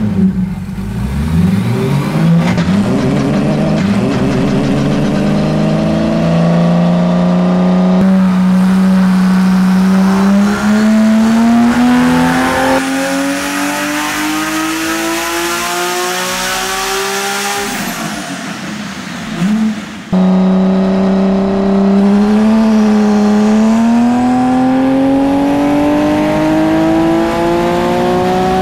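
Twin-turbo Toyota 2JZ inline-six in a land-speed streamliner running under load on a hub dyno. Its note climbs steadily in long pulls, drops away briefly about two-thirds through, then climbs again in another pull.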